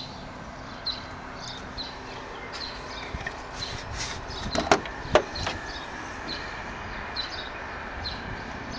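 Two sharp knocks about half a second apart, near the middle: the Mini's bonnet being unlatched and raised. Behind them, small birds chirp repeatedly.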